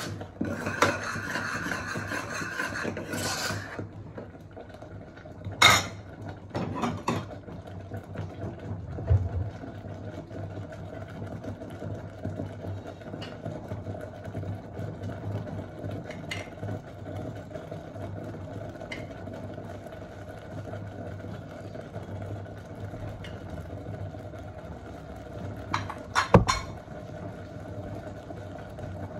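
A metal spoon stirs and scrapes a pot of thick curry gravy for the first few seconds, over a steady low hum. Sharp clinks of the spoon come at about six seconds and again near the end, when powdered spices go into the pot.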